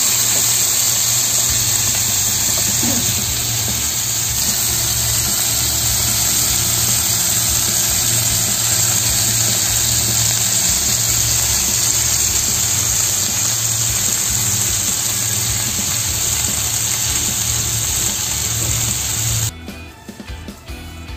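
Oil sizzling steadily under a soya-sheet pancake shallow-frying in a stainless steel pan, with a low hum beneath. The sizzle cuts off suddenly near the end.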